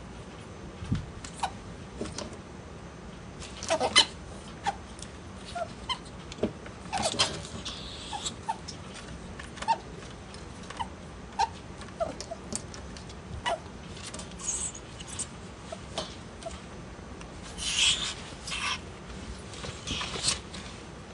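Two ferrets play-fighting: short, scattered dooking chirps throughout, and hisses that come several times, the longest about a third of the way in and again near the end.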